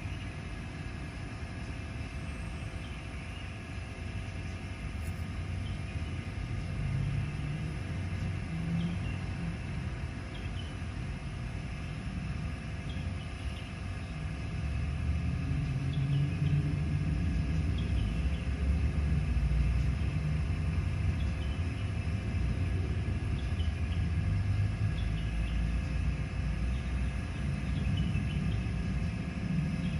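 A steady outdoor low rumble that grows louder about halfway through, with a faint steady hum over it and small high chirps now and then.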